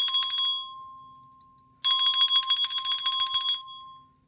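A bell rung in a rapid trill of strikes, in two bursts of about a second and a half each. Each burst rings on and fades out after the strikes stop.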